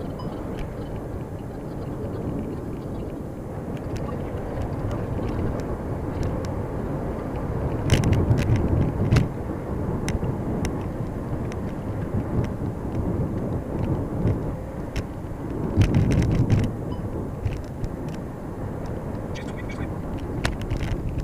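Steady road and tyre rumble heard inside a moving VW Touran's cabin. Twice, about eight and sixteen seconds in, the rumble swells and comes with a cluster of sharp knocks and rattles, as from bumps in the road surface.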